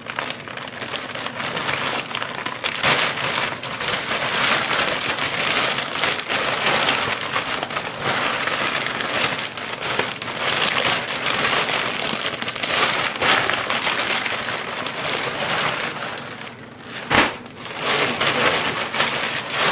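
Plastic mailer bag crinkling and rustling continuously as hands open it and pull out a pack sealed in a clear plastic bag. A single sharp click near the end.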